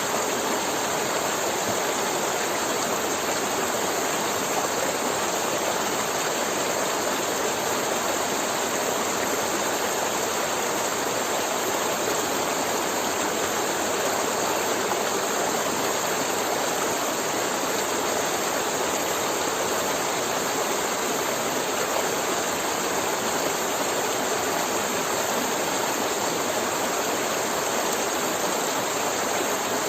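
River water flowing and gurgling in a steady rush.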